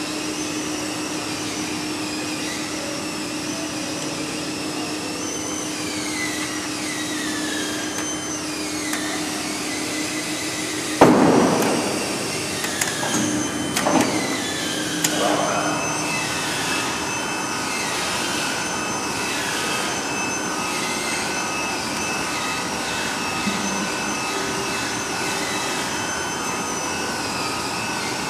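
Datien CT-300E guillotine paper cutting machine running with a steady rushing noise and a few falling whines. About eleven seconds in there is a loud thud, followed by a few lighter knocks over the next four seconds.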